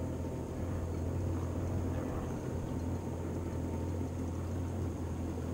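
Boat's outboard motor idling steadily, a low even hum.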